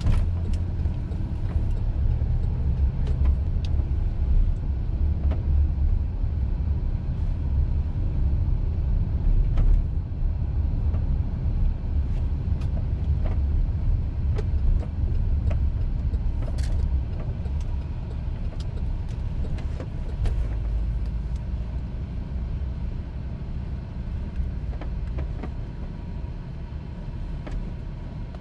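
Car driving on city streets: a steady low rumble of engine and road noise.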